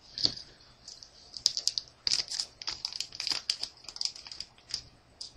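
Foil trading-card booster pack crinkling as it is handled and slowly cut open with safety scissors: an irregular run of small crisp crackles and snips.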